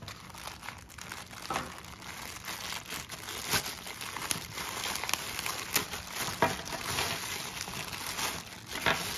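Plastic packaging and tape crinkling and tearing as a taped-together bundle holding a remote and its batteries is opened, with scattered sharp clicks.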